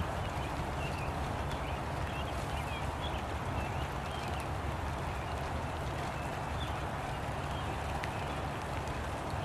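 Steady rain falling and pattering on umbrellas, with small birds chirping now and then.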